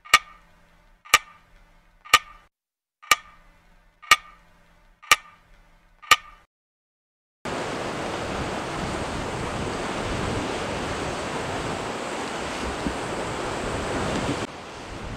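Seven sharp ticks, one each second, each with a brief ringing tone over dead silence. About seven seconds in, steady wind and sea surf noise takes over, easing slightly near the end.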